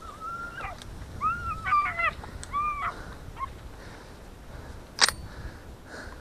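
Jagdterrier whining in a string of short, high, rising-and-falling cries over the first three seconds, then a single sharp click about five seconds in.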